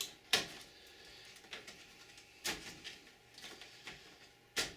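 Sharp plastic-and-metal clicks and knocks from hands working inside a vintage 486 desktop case, pulling the cables off the floppy drives. There are three distinct knocks; the last one, near the end, is the loudest, with light rustling between them.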